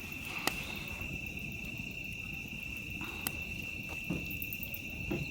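Cricket trilling steadily in one continuous high tone, with a few sharp clicks over it.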